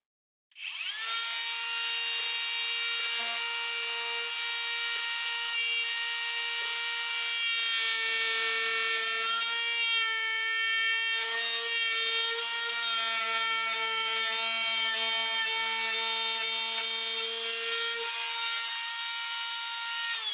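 RIDGID compact trim router starting up about half a second in and running at high speed with a steady high-pitched whine, its bit cutting into the wooden top of a box.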